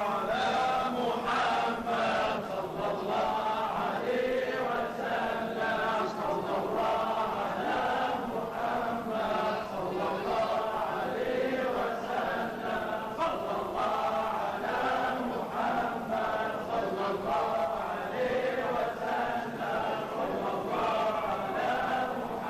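A gathering of men chanting Sufi dhikr together in unison, a continuous, steady group chant.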